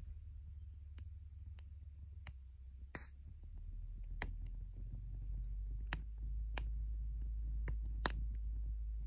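Wood fire in a teepee of stacked boards crackling, with sharp, irregular pops about once a second, the loudest near the end. Underneath runs a low steady rumble of wind on the microphone that grows louder a little before halfway.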